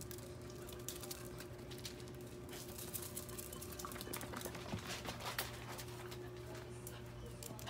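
Dogs' claws clicking and pattering as small dogs run across paving and in onto the floor, scattered light taps that are busiest in the middle, over a steady low hum.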